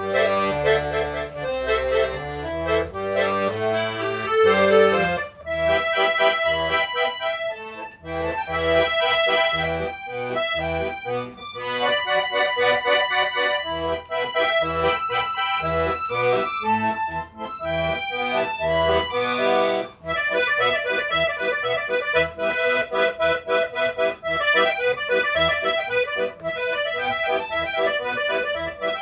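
Solo accordion playing a fast, lively Chinese piece: quick runs and repeated notes in the right hand over changing left-hand bass notes, with a few very short breaks between phrases.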